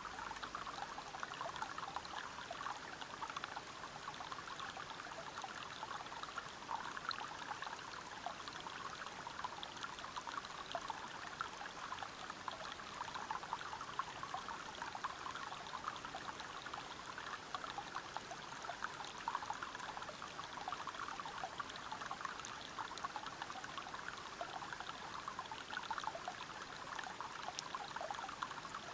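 River water flowing over rocks at a small waterfall: a steady, even rush full of fine splashing and trickling.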